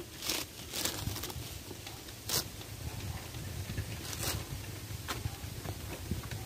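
About five short rustling scrapes as hands handle a cardboard carrying box and a black hook-and-loop (Velcro) strap, over a low steady background rumble.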